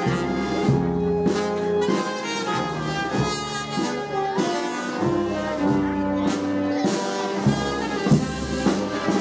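Brass band playing, with trumpets and trombones holding notes over drum beats.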